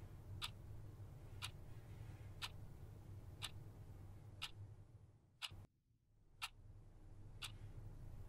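A clock ticking steadily, one sharp tick a second, over a faint low hum. A little past the middle the hum drops almost to silence for about a second and then fades back in, while the ticking keeps on.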